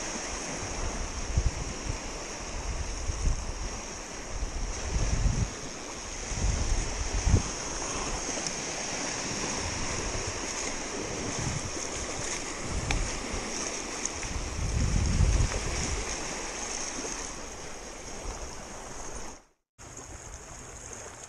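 Small lake waves lapping and splashing, with gusts of wind buffeting the microphone; the sound cuts out briefly near the end.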